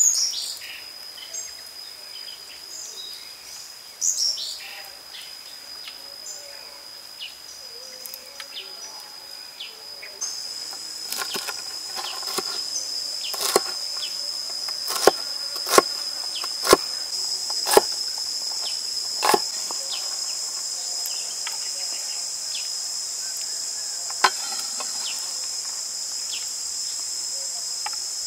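Knife chopping long beans on a wooden cutting board: a run of light quick taps, then single sharp chops about a second apart. A steady high insect drone runs underneath.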